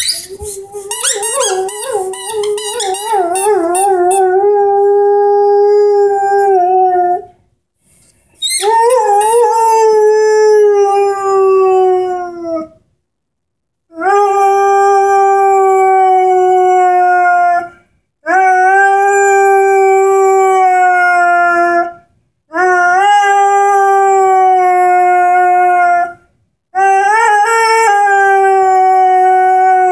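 A 10-month-old Airedale Terrier howling: six long drawn-out howls of about four seconds each with short breaks between. The first wavers up and down in pitch before settling, and each of the others starts with a brief rise and then holds, sinking a little at the end.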